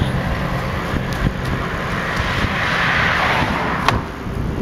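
Bicycle riding noise picked up by a bike-mounted camera: wind buffeting the microphone over a steady rumble and rattle from the rough path. A hiss swells about two to three seconds in, and there is a sharp click near the end.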